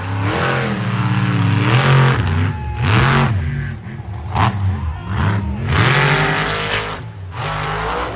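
Monster truck engine revving hard, its pitch climbing and falling repeatedly as the throttle is worked, with several loud surges.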